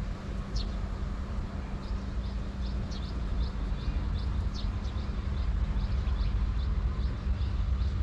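Small birds giving short, high, downward chirps, a few a second, over a steady low rumble and hum.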